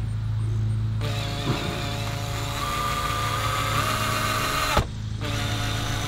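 Hitachi cordless drill driving a Phillips screw into a doorbell mounting bracket: the motor whines for about four seconds, steps up in pitch once near the end, then stops with a click. A steady low hum runs underneath throughout.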